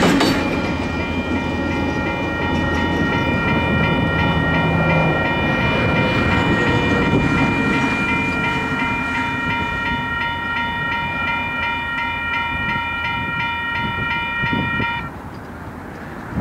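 Grade-crossing warning bell ringing steadily over the fading low rumble of a passed freight train. The bell cuts off suddenly near the end.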